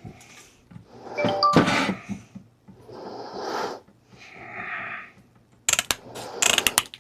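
A pair of shears handled and cutting material: scraping, rustling swishes, then a fast run of crunchy snips and clicks near the end.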